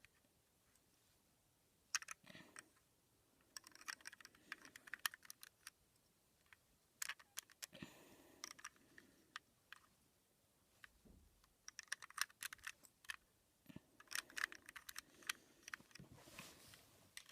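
Faint clicking and clacking of plastic Rubik's Cube pieces in short clusters with quiet gaps between them, as the cube is turned and pieces are pressed into place.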